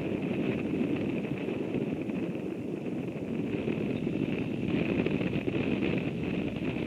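Wind noise on an outdoor microphone, with a steady high-pitched drone behind it.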